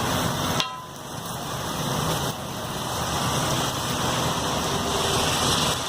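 Roadside street-food stall ambience: a steady hiss of noise that drops sharply about half a second in, then slowly builds back up.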